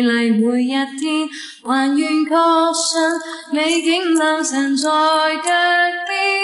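Background song: a woman singing a slow, lilting melody with long held notes, the voice well forward of any accompaniment.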